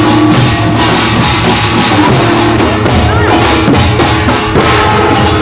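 Music with drums and jangling metal percussion playing a steady, dense beat, with some held pitched notes over it.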